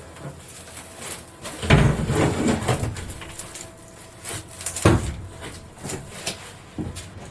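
Knocking and scraping as a panel of the boat's interior is worked loose and pulled out, with two heavy thumps, about two and five seconds in.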